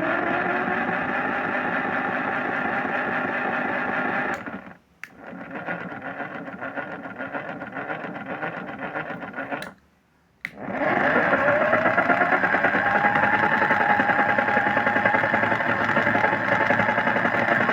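Simba washing machine running, its motor whine rising in pitch as it starts up. The sound cuts off briefly twice. After the second break it starts again with another rising whine and runs on louder and steady.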